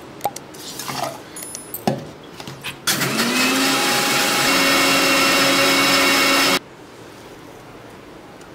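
A few small metal clinks as a ladle works in a steel mixie jar. Then, about three seconds in, an electric mixer grinder starts, its motor whine rising as it spins up. It runs steadily for about four seconds, grinding soaked finger millet (ragi) with almonds and water, and cuts off suddenly.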